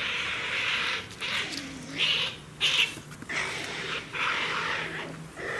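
Tsushima marten making a series of short, breathy, unpitched calls, with two louder ones about two and three seconds in.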